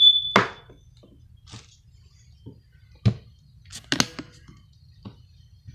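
Scattered short crackles and knocks as a plastic shopping bag and the things inside it are handled, with the loudest cluster about four seconds in.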